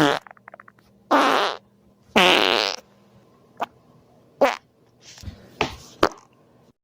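A run of fart sounds: a short sharp one at the start, then two longer wavering ones about a second and two seconds in, the second the longest. After them come several short sharp pops spaced out toward the end.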